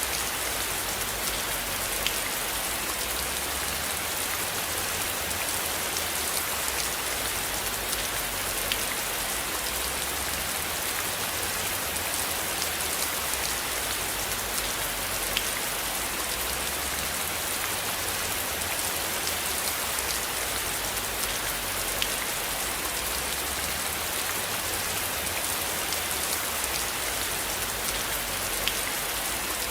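Steady rain falling, an even hiss with a sharper drop ticking now and then.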